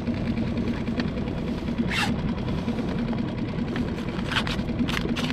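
Small boat motor running steadily with a constant low hum. A few brief clicks over it.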